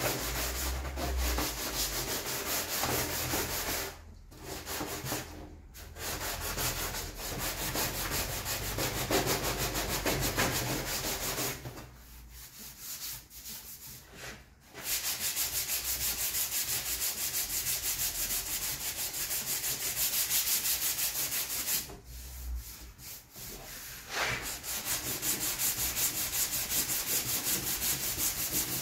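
Hand sanding block with sandpaper rubbed back and forth in quick, light strokes over a plastic motorcycle fairing panel, a dry scratchy rasp that stops briefly three times.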